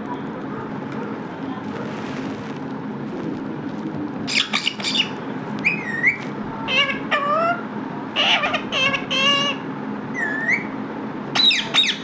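Rose-ringed parakeet calling, starting about four seconds in: a series of short, high squeaky calls that bend up and down in pitch, some warbling, over a steady low hum.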